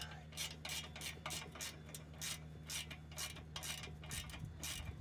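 Ratchet spanner clicking in an even rhythm, about three clicks a second, as the nuts of an exhaust clamp are wound up tight a little at a time.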